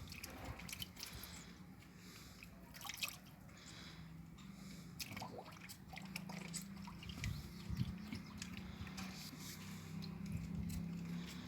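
Water dripping and splashing lightly as plastic bird drinkers are rinsed by hand, in scattered small drops and clicks over a faint low steady hum.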